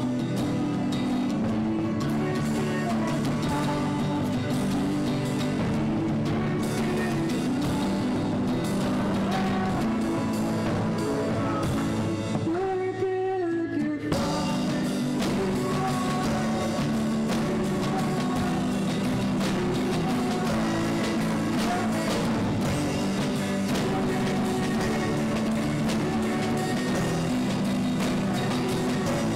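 Live church worship band playing a song: drum kit, grand piano, violin and guitar, with singing. About 13 seconds in, the band drops out briefly to a single held note, then comes back in full.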